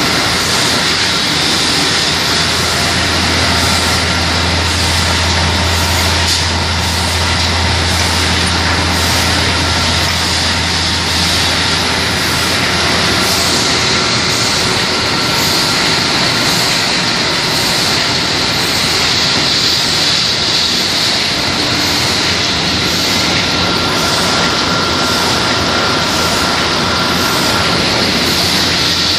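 Toilet-paper and kitchen-towel converting line running: a loud, steady mechanical din of the machinery, with a deep hum that comes in about two seconds in and dies away around twelve seconds.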